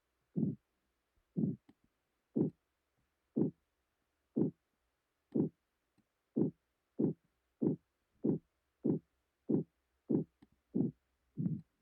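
Synthesised pulsatile-tinnitus sound: short, low, heartbeat-like pulses in a steady rhythm, about one a second, quickening to about one and a half a second about halfway through.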